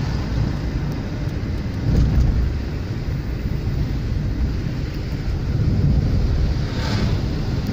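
Steady low rumble of engine and road noise inside a moving car. Near the end an oncoming truck passes with a brief rush of noise.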